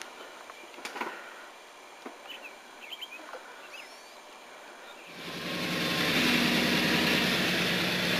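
Quiet outdoor ambience with a few faint bird chirps and light clicks. About five seconds in it cuts abruptly to a 4x4 pickup truck's engine running loud and steady.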